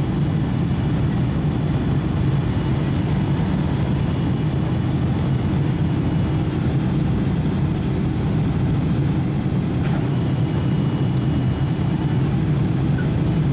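Steady cabin roar of a Boeing 757-200 climbing out after takeoff: its two turbofan engines and the rush of air past the fuselage, heard from inside the cabin as an even, unchanging low rumble.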